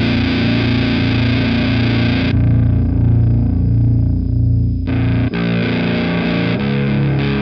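Heavily distorted electric guitar, tuned to drop B, playing a doom riff through Sunn Model T-style drive pedals: a sustained low chord rings through the EarthQuaker Devices Acapulco Gold. About two seconds in, the tone switches to the Kuro Exegol, which is darker with the fizzy top end gone. Near five seconds it switches back to the brighter, gainier Acapulco Gold, and new notes follow.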